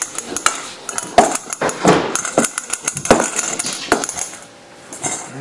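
Hardtack dough being kneaded by hand in a stainless steel mixing bowl, the metal bowl knocking and clattering irregularly about twice a second, with a brief lull near the end.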